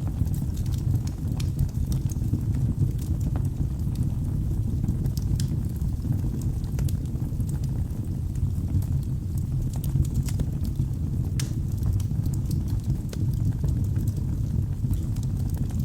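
Wood fire burning in a fireplace: a steady low rumble of flame with frequent small, irregular crackles and pops from the burning logs.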